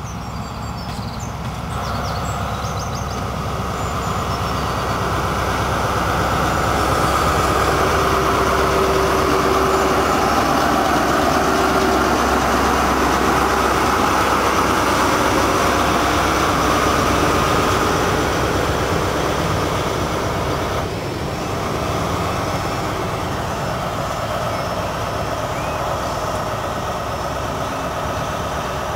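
High Speed Train (InterCity 125) passing at speed: the Class 43 diesel power car's engine and the running of the coaches build up, hold loud for about ten seconds, then drop at an abrupt change about three quarters of the way through, the rear power car running by more quietly. A few faint bird chirps near the start.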